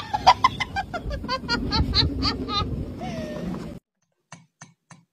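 A quick run of short high-pitched cries, about five or six a second, then a brief gliding tone. After a sudden drop to quiet, a computer mouse clicks steadily, about three clicks a second.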